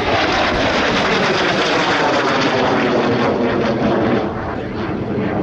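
Dassault/Dornier Alpha Jet's twin Larzac turbofan engines in a display climb: a steady jet roar that eases slightly near the end.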